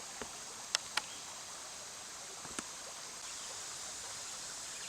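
Small mountain stream running steadily, with a few faint clicks in the first few seconds.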